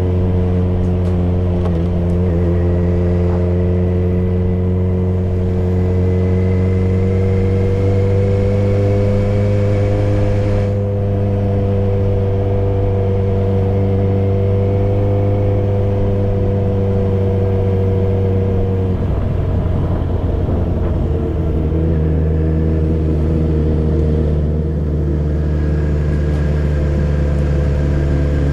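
Yamaha XJ6's 600 cc inline-four running steadily through a Dominator GP full aftermarket exhaust with dB killer, its note rising slightly and then holding. About two-thirds of the way through the note breaks up briefly and comes back at a lower pitch.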